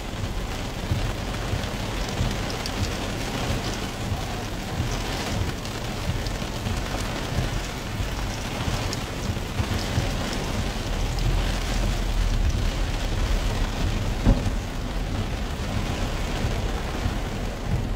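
Heavy rain falling on a car's roof and windscreen, heard from inside the cabin as a steady hiss of drops with a low rumble underneath.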